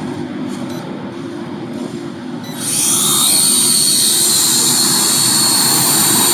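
A small camera drone's propellers start up about two and a half seconds in: a loud, steady high whine that comes in suddenly over a low steady rumble.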